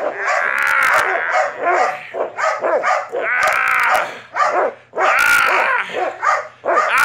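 Belgian malinois barking over and over, in loud excited barks that come every half second to a second.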